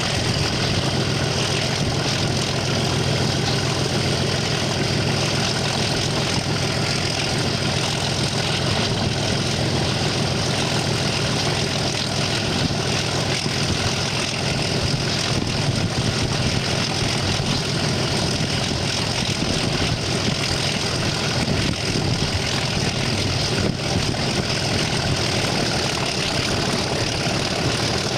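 Class 37 diesel-electric locomotive's English Electric V12 diesel engine running steadily as the locomotive moves along the line, heard from beside the cab.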